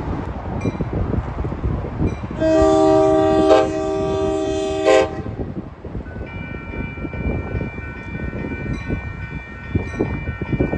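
Passing train with its multi-note air horn sounding one long blast of about two and a half seconds, starting a couple of seconds in and dropping in level partway through, over the train's steady running rumble. After the horn stops, a fainter steady high-pitched ringing tone continues.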